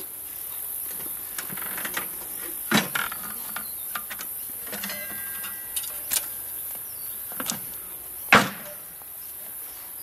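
Wooden hive boxes being handled and set in place: several short knocks and scrapes, the loudest knock about eight seconds in, over a steady high hiss of insects.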